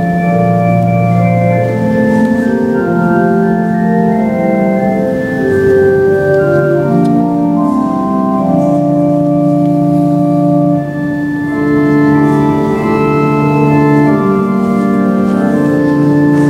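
Organ music: held chords of several notes at once, moving slowly from one chord to the next.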